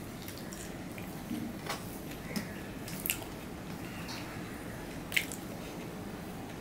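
Eating by hand: fingers squishing and mixing rice against a steel plate, with wet chewing and a few short, sharp clicks, the sharpest about five seconds in.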